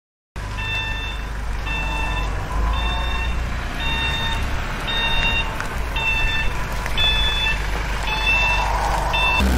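Electronic reversing-alarm beeps, about one a second, over a low steady engine-like rumble, starting after a brief silence at the start.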